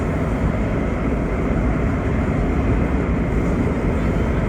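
Vintage R1-9 subway cars running along the track: a steady, loud rumble of wheels and traction motors with no distinct clanks or breaks.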